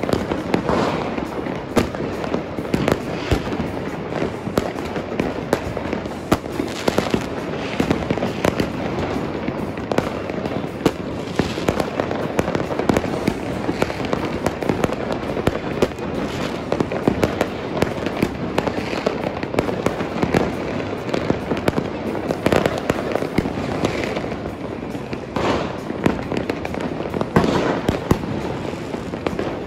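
Many fireworks going off at once across a city: an unbroken barrage of bangs and crackles, near and far, with no pause.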